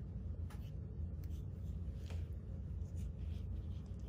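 Quiet scraping and rubbing of steel dissecting forceps and gloved hands on a sectioned dog head, with a few light ticks over a steady low hum.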